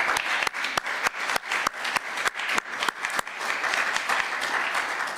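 Applause from a small group of people, with individual hand claps standing out sharply over the steady patter.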